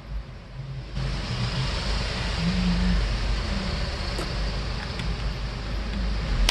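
Desktop PC's cooling fans running at high speed, a steady rushing whoosh with a low rumble that comes on abruptly about a second in, as the computer powers up during a reboot.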